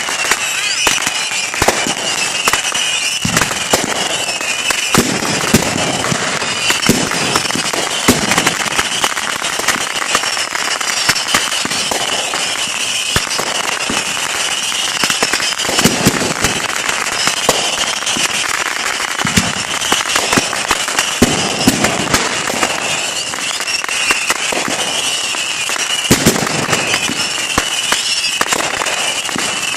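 Fireworks going off in a continuous barrage: dense crackling and rapid sharp pops throughout, with a wavering high-pitched hiss over them and a few heavier booms mixed in.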